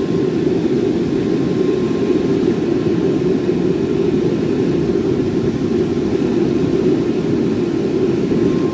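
Blown propane ribbon burner forge running at full fire: the blower and burner flame make a steady, low rushing noise without a break.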